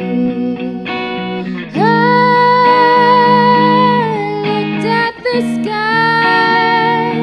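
A woman singing long held notes over electric guitar chords: the first note swoops up into place about two seconds in and is held for about two seconds, then after a brief break near the five-second mark a second held note follows.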